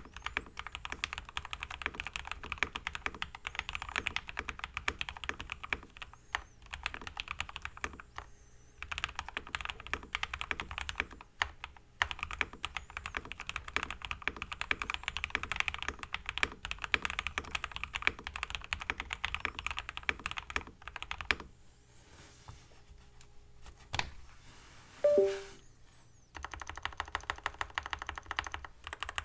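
Modded Keychron K8 mechanical keyboard with lubed Everglide Aquaking V3 linear switches, a POM plate and foam dampening, typed on quickly in bursts with short pauses. The typing stops about 21 seconds in. After a quieter stretch with one sharp click and a short two-note blip, the loudest sound, evenly spaced keystrokes resume near the end.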